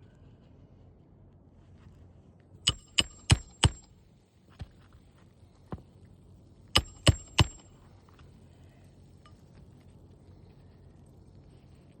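Hammer driving roofing nails into an asphalt shingle: four sharp strikes about three a second, two lighter taps, then three more strikes, each with a brief metallic ring.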